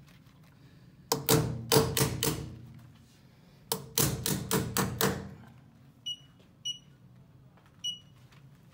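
A clip-on wheel weight being hammered onto the edge of a steel rim with wheel-weight pliers: two quick runs of sharp, ringing metal taps, about five or six in each. After them the wheel balancer gives three short electronic beeps.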